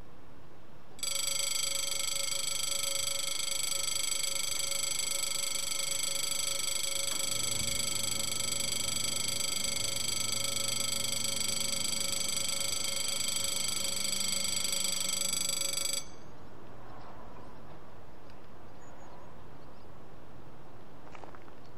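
Railway level-crossing bell ringing continuously for about fifteen seconds, then cutting off abruptly. A faint low hum joins in the middle of the ringing.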